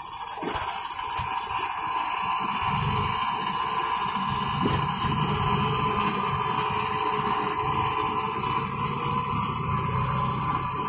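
Tractor diesel engines running hard under load while pulling against each other in a chained tug-of-war. The deep engine sound grows louder about two and a half seconds in.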